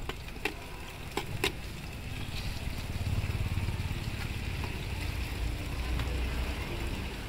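Metal spatula clicking against a flat metal griddle four times in the first second and a half, over a faint sizzle of cakes frying in oil. A low traffic rumble swells from about three seconds in.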